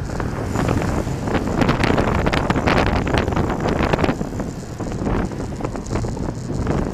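Wind buffeting the microphone of a bicycle-mounted camera at about 17 mph, a rough, gusty rushing noise with many short bursts. It is heaviest for the first four seconds, then eases a little.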